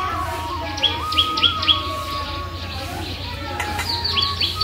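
Birds chirping in quick bunches of short calls, over a soft background melody of long held notes that step up and down.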